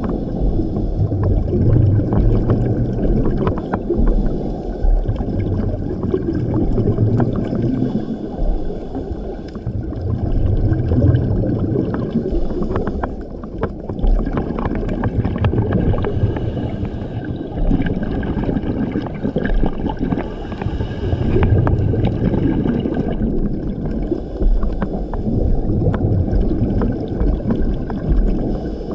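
Scuba diver breathing through a regulator underwater: exhaled bubbles gurgle in low swells about every four to five seconds, over a steady wash of water noise with scattered faint clicks.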